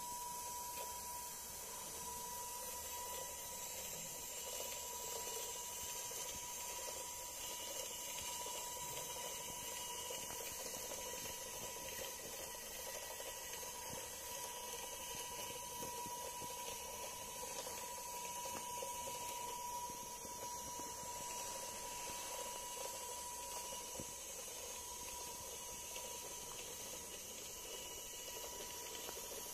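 Small battery-powered DC motor of a homemade LEGO monorail engine running steadily as it drives the wagon along the toothed monorail track, a constant high whine over a rough gear noise.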